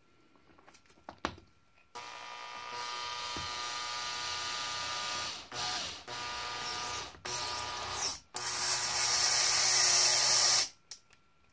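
Cordless drill/driver driving a 3D-printed plastic screw anchor into XPS foam board. A few soft clicks, then about two seconds in the motor whirs in several spurts, starting and stopping; the last run is the loudest and stops shortly before the end.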